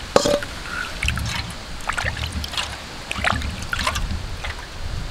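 Water sloshing and splashing in irregular bursts as a hand swishes it around the hollow of a stone wet grinder (aattukal), rinsing out the leftover masala paste.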